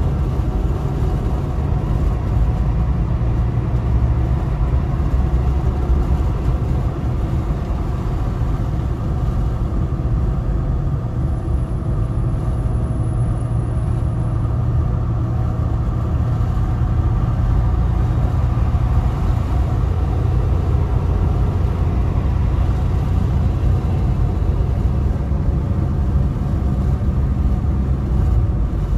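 Steady noise of a car cruising on a multi-lane road, heard from inside the cabin: tyre and engine noise, heaviest at the low end.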